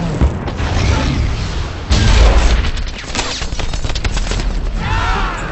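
War-film battle sound effects: rapid gunfire and repeated explosions, with a heavy boom about two seconds in and a short whine near the end.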